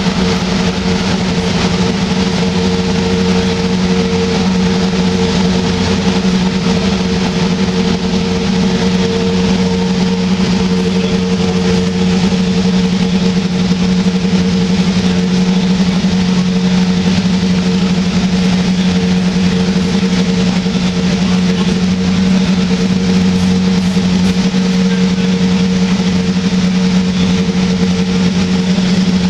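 Steady mechanical drone at constant speed, holding a low hum and a higher tone without change.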